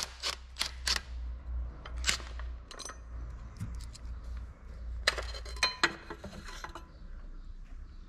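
Metal hand tools and engine parts clicking and clinking during dismantling: scattered sharp metallic taps, with a quick run of clicks and a brief ringing metal note about five seconds in.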